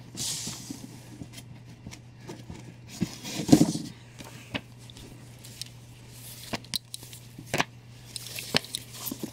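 Comic books and cardboard rustling and tapping as hands rummage in an open shipping box and pull comics out, with a louder rustle a little past three seconds. A steady low hum sits underneath.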